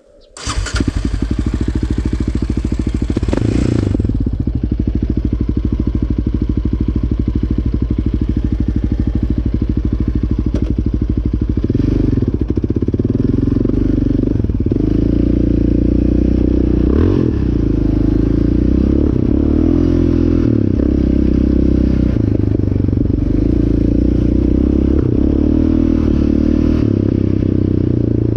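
Yamaha Raptor 700R's single-cylinder four-stroke engine comes on suddenly at the start, then runs steadily as the quad rides off along desert trails. A hiss covers the first few seconds, and from about the middle on the revs rise and fall with throttle and gear changes.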